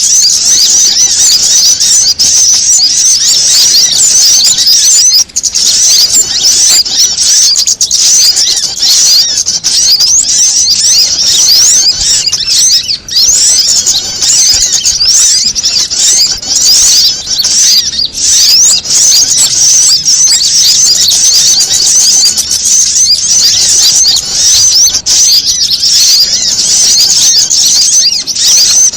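Bird-lure recording mixing agitated calls of several small songbirds (prenjak, female sogon sunbird, kemande and sunbirds), layered into a loud, dense, unbroken chatter of high chirps and squeaks.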